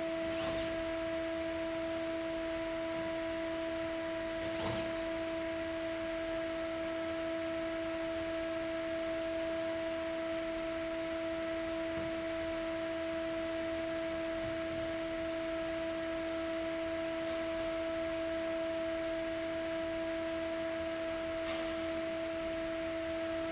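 A steady hum at one unchanging pitch, with overtones, and a few faint clicks.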